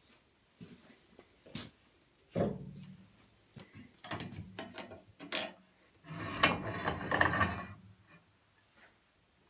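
Aluminium saw fence being fitted and adjusted on a steel rail by hand: several knocks and clicks of metal on metal and wood, then a longer rubbing scrape about six seconds in as the fence slides along the rail.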